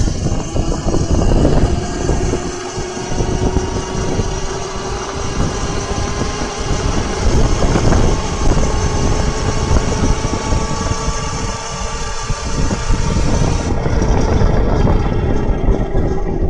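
Homemade electric motorbike driven by a 72-volt wound-field car alternator used as its motor, whining steadily while riding, its pitch creeping up and then easing off slightly near the end. Rough tyre and wind noise runs underneath.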